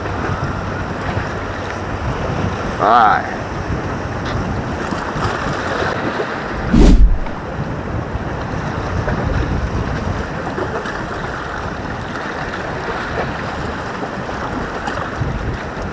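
Small sea waves washing against shoreline rocks, with wind buffeting the microphone. A loud, sudden thump about seven seconds in.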